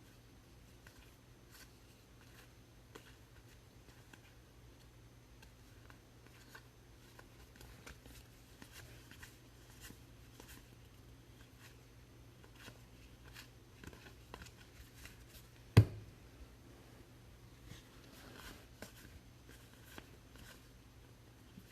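Trading cards being handled and flipped through: faint scattered clicks and rustles, with one sharp knock about three-quarters of the way in.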